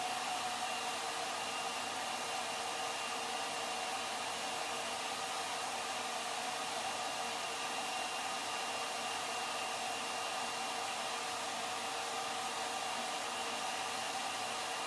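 CNC router spindle running steadily: an even rushing noise with a constant whine of several pitches.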